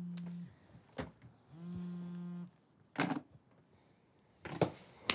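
A steady low buzz in two bursts of about a second each, with several sharp clicks and knocks between and after them.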